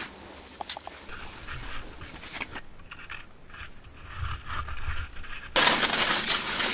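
A skier's heavy panting breaths, with short clicks and scrapes of skis and poles on steep hard snow. A loud rush of snow noise starts suddenly about a second before the end.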